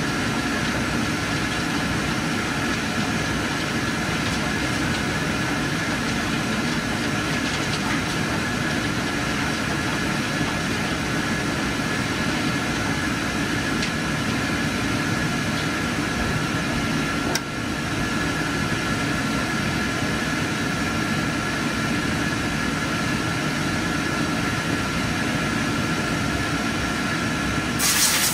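Steady whir of machinery in an IMAX 70mm film projection booth: fans and blowers running evenly, with a faint constant whine through it. Near the end a louder hiss with a few clicks cuts in.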